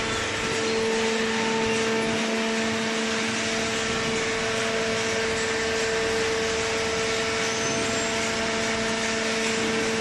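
Hydraulic cardboard baler's electric motor and hydraulic pump running, a steady hum with a constant whine over a hiss.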